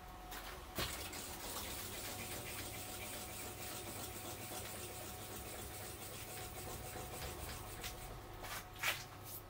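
Milling machine table traversing with the spindle stopped: a steady, fairly quiet mechanical hiss with a faint whine. A sharp click comes about a second in and a louder one near the end.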